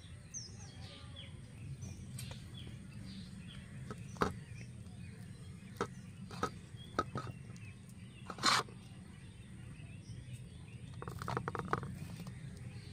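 Fingers scooping spiced filling from a steel plate and pressing it into hollowed pointed gourds, giving scattered light clicks and taps against the metal, the sharpest a little past halfway and a quick run of clicks near the end. Birds chirp faintly over a low steady rumble.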